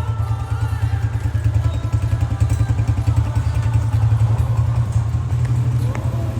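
Honda CG125 motorcycle's single-cylinder four-stroke engine, 2002 model, running at a steady idle with an even pulsing beat. The engine has just had engine work done.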